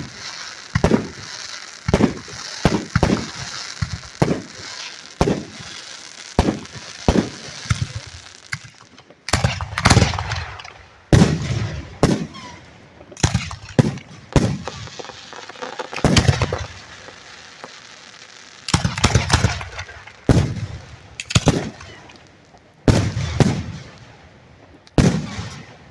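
Aerial firework shells bursting directly overhead. For the first eight seconds or so there is a quick run of sharp bangs over a crackling hiss. After that come heavier booms with a low rumble, one every second or two.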